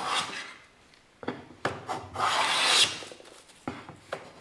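Metal bench plane with a chip-breaker blade shaving quarter-sawn black cherry: one stroke ends about half a second in, a couple of light knocks follow, then a second, longer stroke of about a second and a half, with another light knock near the end.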